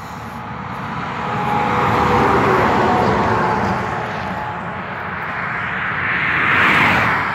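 Road traffic passing close by: one vehicle's tyre and engine noise swells and fades about two to three seconds in, and a second, brighter pass peaks near the end.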